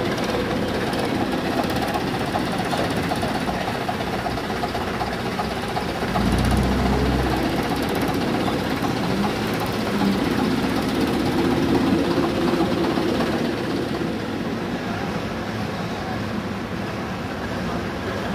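Vintage AEC double-decker bus's diesel engine pulling away, its note rising twice as it accelerates, with a heavy low thump about six seconds in.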